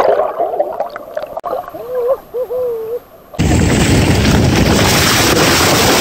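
Mountain bike riding fast through a shallow stream, the front tyre throwing up spray: a loud, steady rush of splashing water that starts abruptly a little over halfway through. Before it, quieter gurgling water and a few short vocal sounds.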